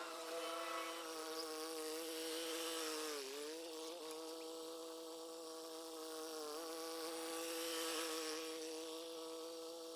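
Tractor's diesel engine running steadily while it drags a plank leveller across ploughed soil, heard as an even buzzing drone. Its pitch sags briefly about three seconds in and again near seven seconds as the load changes.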